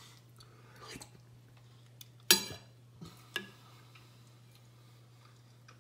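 A metal spoon clicking against a ceramic soup bowl while scooping thick soup: a few light clinks, the loudest a bit over two seconds in.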